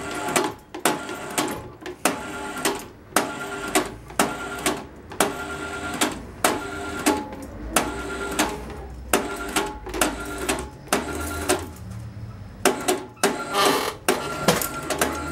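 Manual chain hoist being worked under the weight of a heavy engine, its chain clanking and ringing through the block about two to three times a second, with a brief lull about twelve seconds in.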